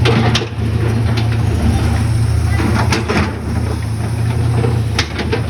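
Heavy diesel construction machinery running steadily with a deep, constant drone, broken by a few sharp metallic knocks.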